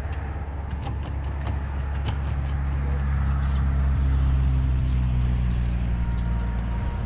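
An engine running with a steady low hum, growing louder to about four seconds in and then easing off, with a few faint clicks over it.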